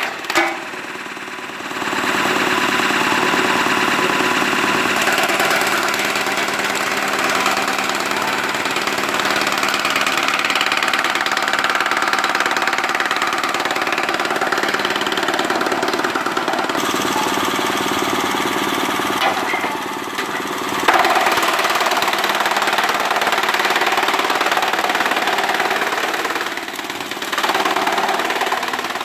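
Electric-motor-driven coconut frond shredder running under load, its rotor chewing through fronds fed into the hopper with a loud, steady, chattering shredding din. The noise eases off briefly three times: near the start, about twenty seconds in and about twenty-seven seconds in.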